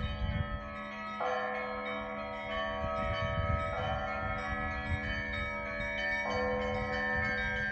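Russian Orthodox monastery bells ringing. A group of bells is struck together about every two and a half seconds, each stroke ringing on until the next, with smaller, higher bells sounding in between and a steady low hum underneath.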